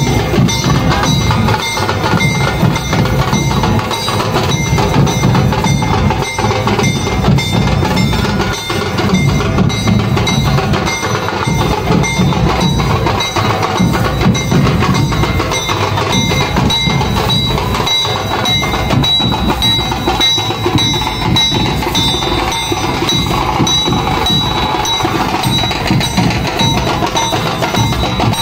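Maharashtrian dhol-tasha troupe playing loudly: barrel drums beaten in a fast, dense rhythm, with metal cymbals ringing over them.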